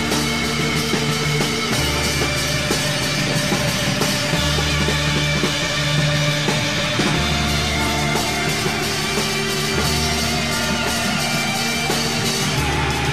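Rock music: guitars over a bass line of long held notes that change about every second and a half.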